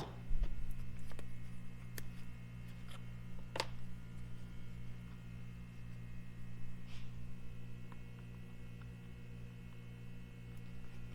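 Steady electrical mains hum, with a few faint, scattered clicks of small metal parts being handled: the oil plug and its crush washer.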